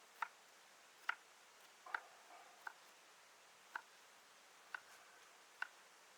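A series of light, sharp clicks or taps, about one a second and slightly irregular, over a quiet background.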